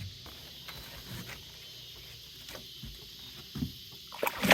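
A few faint knocks, then a sudden loud splash of water near the end.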